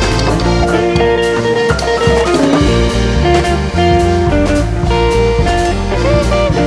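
Background music with a plucked guitar over a bass line and light drums.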